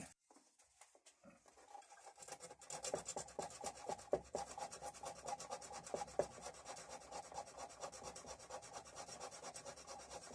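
Emery paper rubbed back and forth on painted metal in quick strokes, sanding the paint off to bare metal so that an earth wire makes good contact. The rubbing begins about two seconds in.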